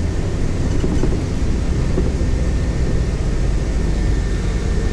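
Steady low rumble of a city bus in motion, heard inside the cabin: engine and road noise.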